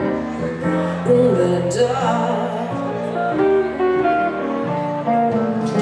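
Live band music: an archtop electric guitar and an electric keyboard playing a slow instrumental passage between sung lines, with low notes moving step by step underneath.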